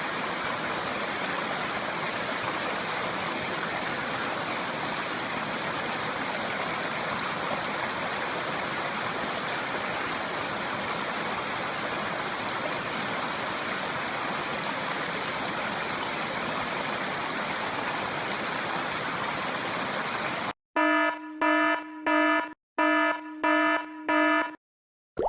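Steady rush of a clear river flowing over rocks for about twenty seconds. Then the water sound cuts off and a run of short electronic beeps, about seven in two groups and louder than the water, sounds near the end.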